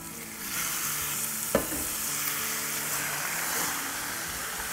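Minced meat (keema) going into hot oil in a pan and sizzling, the sizzle swelling about half a second in as the mince is scraped in and spread with a silicone spatula. A single sharp knock about a second and a half in.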